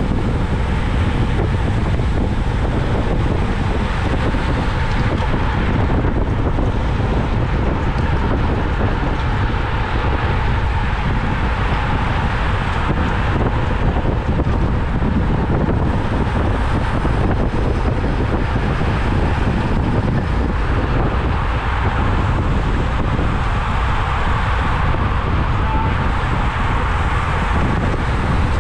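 Wind rushing over the microphone of a camera carried on a road bicycle ridden at speed: a loud, steady roar of wind noise with no pauses.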